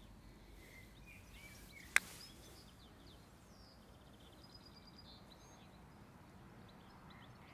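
A single sharp click about two seconds in: a putter striking a golf ball. Faint bird chirps sound over quiet outdoor ambience.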